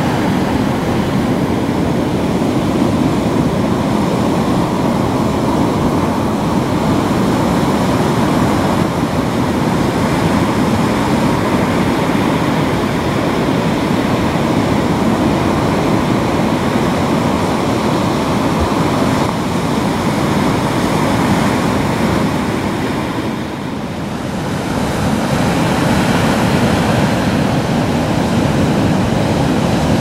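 Sea surf breaking and washing up a sand-and-shell beach among rocks: a steady, loud rush of waves with wind. The sound eases briefly about three quarters of the way through, then builds again.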